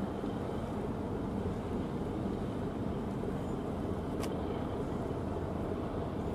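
Steady low drone of distant ship engines, the tugboats and patrol vessel under way, with a single faint click about four seconds in.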